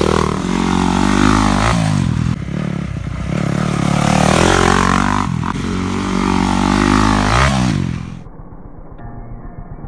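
Yamaha YZ dirt bike engine revving up and down as it is ridden, its pitch rising and falling several times. About eight seconds in it drops abruptly to a much quieter, muffled sound.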